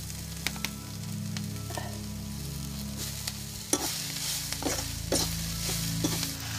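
Chopped boiled wild greens sizzling as they hit hot oil with fried onion and green chilli in a kadhai, then being stirred with a metal ladle that scrapes and knocks against the pan several times. The sizzling grows louder about halfway through, over a low steady hum.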